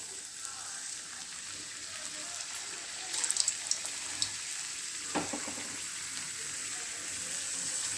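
Thin potato slices frying in hot oil in a kadai: a steady sizzle with scattered crackles, a cluster of them about three seconds in.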